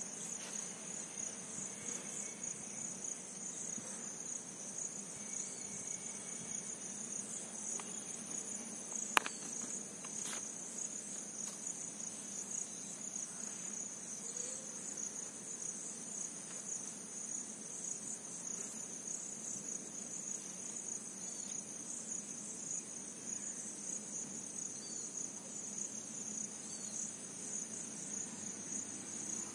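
Insects chirring steadily at a high pitch, with a single sharp click about nine seconds in.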